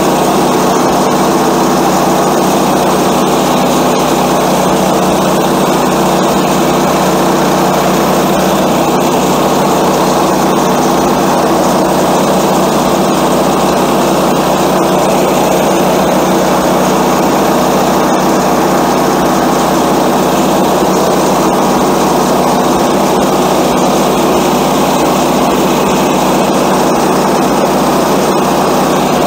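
Woodland Mills HM126 portable bandsaw mill running steadily, its small gasoline engine driving the band blade through a maple log.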